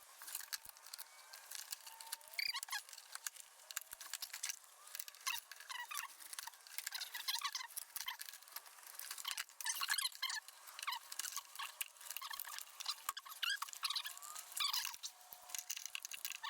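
Rubber radiator hose squeaking and clicking as it is twisted and pushed back onto its fitting on the Jeep Wrangler JK's thermostat housing. The handling noises are irregular: many short squeaks and light clicks.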